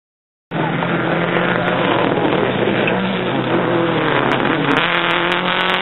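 Rally car passing at speed, its engine running hard, with the pitch rising and falling through the throttle and gear changes and a few sharp crackles near the end. It starts after about half a second of silence.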